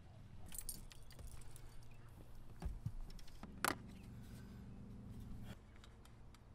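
Fishing gear being handled in a boat: light clinks, rattles and a few knocks, the sharpest about three and a half seconds in, over a faint low hum.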